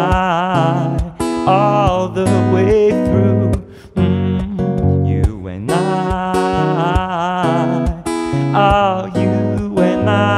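Acoustic guitar playing under a man's wordless singing, long held notes with vibrato. The music dips briefly about four seconds in and again near eight seconds.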